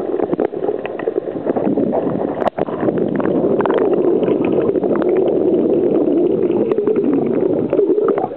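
Muffled underwater noise recorded by a submerged camera: a steady low rush with scattered clicks and crackles, dropping out briefly about two and a half seconds in.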